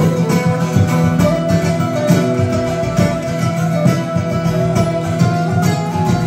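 Live folk band playing an instrumental passage: a flute holds a long note over strummed acoustic guitar, archtop electric guitar chords and a hand-played frame drum keeping a steady beat.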